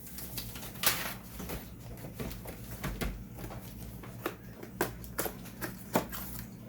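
Irregular clicks, taps and knocks of packaging being handled and moved about on a table, with sharper knocks about a second in and near the end.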